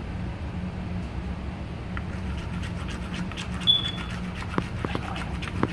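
Plastic spoon stirring slime in a plastic bowl: scattered clicks and scrapes against the bowl, starting about two seconds in, with a brief high squeak, over a steady low hum.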